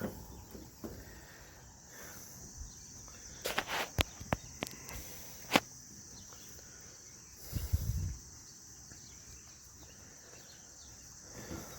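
Steady high chirring of crickets, with a few sharp clicks and knocks about four to six seconds in and a low thump about eight seconds in.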